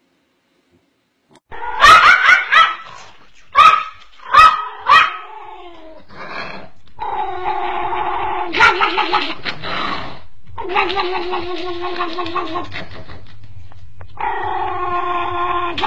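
A dog yelps sharply about six times, starting about a second and a half in, then gives three long, wavering howls of two to three seconds each, with a hand cupped over its muzzle.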